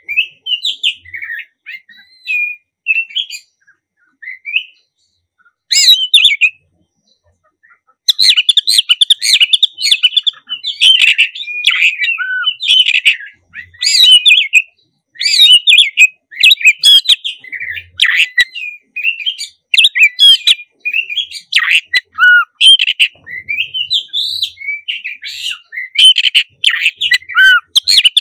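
Black-breasted oriental magpie-robin singing in full song: a fast, varied run of whistles and chirps. It pauses twice in the first eight seconds, then sings almost without a break.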